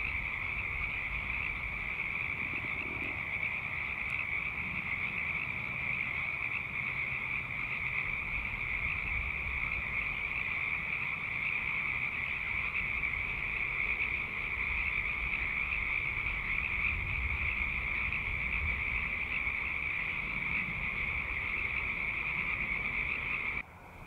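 A large chorus of many frogs calling together, a dense, steady, high-pitched chorus that never lets up; it cuts off suddenly near the end.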